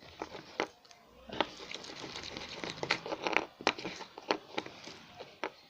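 Hands kneading sticky, foamy homemade glue-and-detergent slime in a small plate: a run of irregular wet crackles and clicks starting about a second in.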